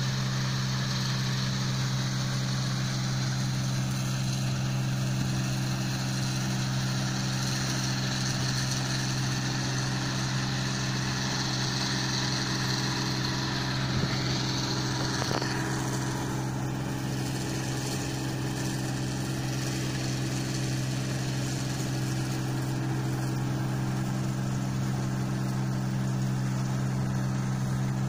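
Sperry New Holland combine harvester running steadily under load while it cuts and threshes rice, a constant engine drone with a deep hum. The higher hiss eases a little about halfway through.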